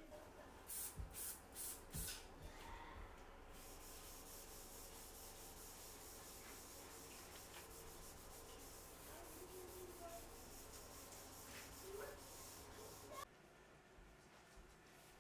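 Faint sound of a cloth wiping a wooden door. It starts with four quick rubbing strokes about a second in, followed by steady, light rubbing, and goes quieter near the end.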